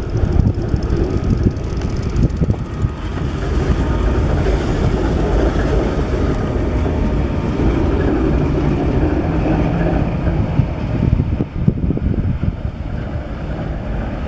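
Diesel rail vehicle's engine running steadily during shunting, growing a little louder for several seconds mid-way.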